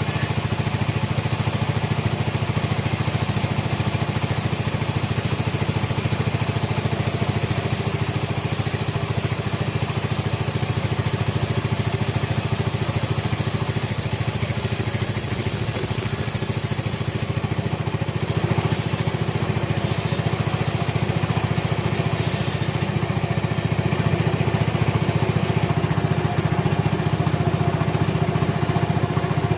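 Sawmill engine running steadily. From about 18 to 23 seconds in, a thin high whine comes and goes over it.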